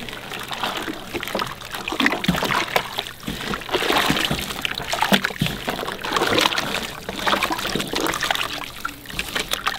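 Brine of salt, brown sugar and water sloshing and splashing as gloved hands stir pieces of black cod in a plastic cooler, in irregular swishes and small splashes.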